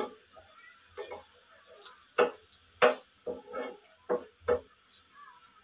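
Wooden spatula stirring sliced onion and garlic frying in oil in a small non-stick pan, with a faint sizzle under about ten irregular scrapes and taps of the spatula against the pan.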